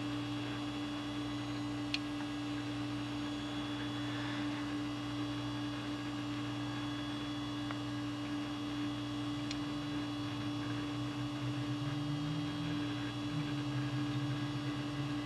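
Steady electrical hum of a desktop computer booting into Windows XP, with one faint click about two seconds in. A lower hum wavers in pitch over the last few seconds.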